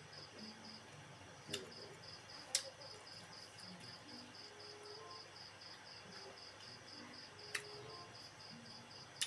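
A cricket chirping steadily in a high, evenly pulsed rhythm, with a few sharp clicks.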